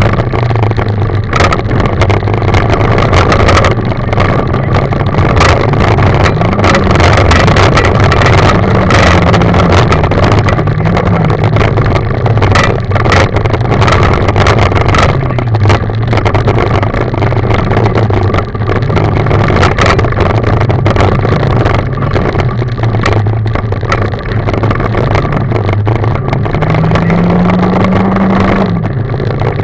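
Rally car's engine working hard, heard from inside the cabin. Its note rises and falls with throttle and gear changes and climbs higher near the end. Gravel clatters against the underside throughout.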